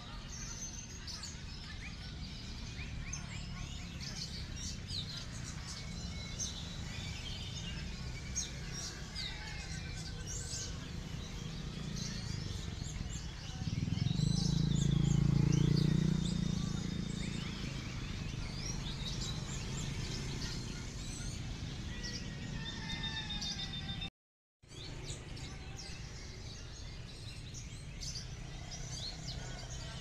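Many songbirds singing at once, a dense mix of overlapping whistles, chirps and trills from caged contest birds. A low rumble swells for a few seconds in the middle, and the sound cuts out for a moment a little after two-thirds of the way through.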